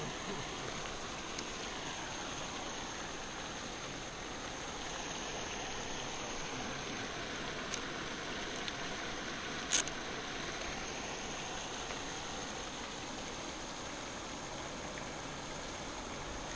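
Steady outdoor hiss with a thin, high, steady tone running through it, and one sharp click about ten seconds in.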